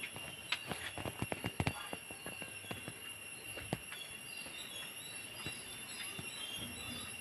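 A steady high-pitched insect drone from the garden, with a quick run of sharp clicks and knocks about a second in and one more click near four seconds in.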